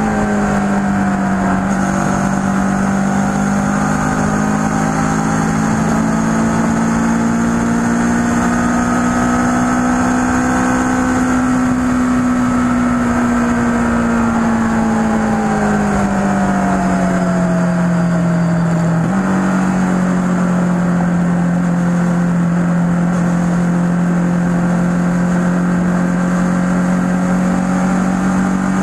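Kawasaki ER-6n's parallel-twin engine running while riding at road speed. Its pitch rises slowly, then falls, and jumps up suddenly about two-thirds of the way in, then holds steady.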